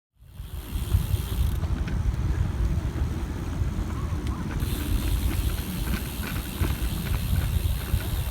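Wind buffeting the microphone of a camera on a moving bicycle, a dense low rumble with road hiss and scattered small ticks over it. It starts abruptly just after the beginning.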